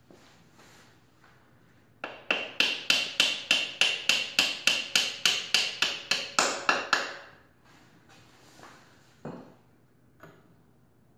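Hammer tapping on the lower mounting bolt of a Honda Grom's rear shock to drive it out: a quick, even run of about twenty light strikes, about four a second, lasting about five seconds, then one more knock. The bolt is stubborn because the swingarm still puts a little tension on it.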